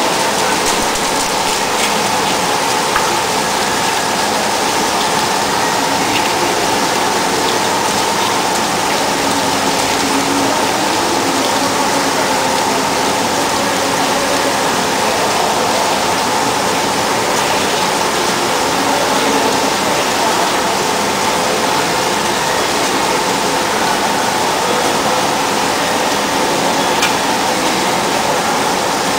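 A high-speed CNC drilling center feeding a 24 mm HSS twist drill at 265 rpm down through a 64 mm stack of four plates, with coolant jets spraying at the cut. It makes a steady rushing hiss of coolant and cutting, with a steady machine tone under it.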